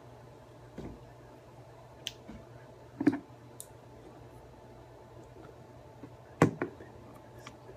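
Scattered clicks and light knocks from hands handling an Eleaf iStick 30W box-mod e-cigarette, a second or more apart, the loudest a double knock a little over six seconds in, over a faint steady low hum.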